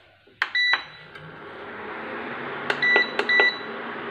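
Induction cooktop's control buttons pressed three times, each press a click and a short high beep, as the power is set. After the first beep the cooktop starts up and runs with a steady whir and a low hum.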